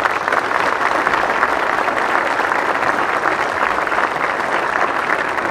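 Crowd applauding steadily: many hands clapping at once.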